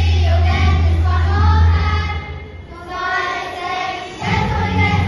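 Children's choir singing together over music with a deep bass line. The bass drops out about two seconds in, leaving the voices lighter, and comes back a little after four seconds.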